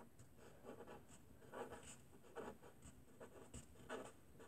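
Pen writing on paper: short, faint scratching strokes of handwriting, coming in irregular bursts.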